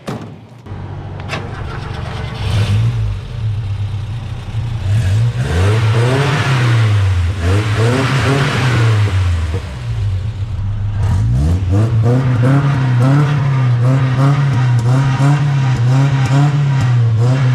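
1977 Mitsubishi Lancer (Dodge Colt) four-cylinder engine with its original Solex carburetor starting up, then being revved in repeated blips that rise and fall, coming in quicker succession near the end.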